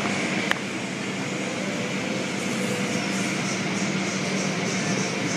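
Automatic tunnel car wash heard from inside the car: a steady noise of spraying water and cloth brushes over the machinery's hum. There is a sharp click about half a second in, and from about three seconds in a fast, regular swishing.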